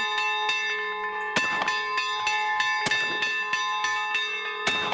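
Church bells pealing in rapid repeated strokes, their tones ringing on without a break, with a few louder sharp cracks, one about a second and a half in and one near the end.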